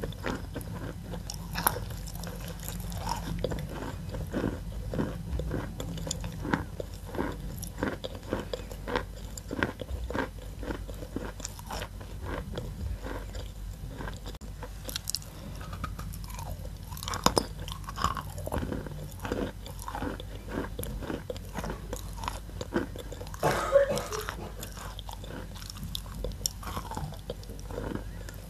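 Chalk being bitten and chewed close to the microphone: a continuous run of sharp, dry crunches, with one louder bite about three-quarters of the way through.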